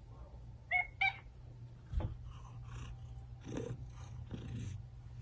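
Tabby cat giving two short, chirping meows close together about a second in, followed by a soft thump; a low steady hum runs underneath.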